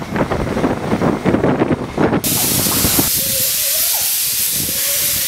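A miniature 15-inch gauge steam locomotive clanking irregularly as it moves through the station. About two seconds in, a loud, steady hiss of released steam cuts in suddenly and continues.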